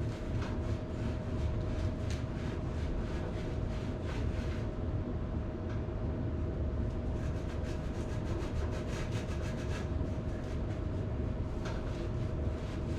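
Sharkbite deburring tool being twisted on the cut end of a half-inch copper pipe, giving faint, irregular scraping clicks as it smooths the edge for a push-fit fitting. Under it runs a steady low hum with a faint steady tone.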